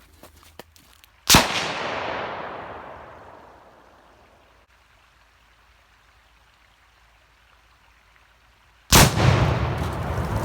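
A loud outdoor blast about a second in, its echo rolling away over two seconds. Near the end comes a second, heavier blast with a deep rumble that carries on.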